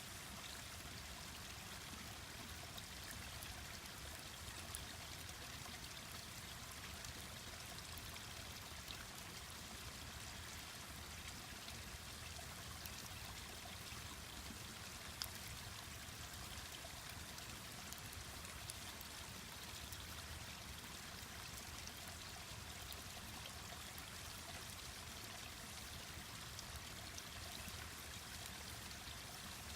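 Mountain stream flowing steadily, with a few faint crackles and snaps from a wood campfire, one sharper pop about halfway through.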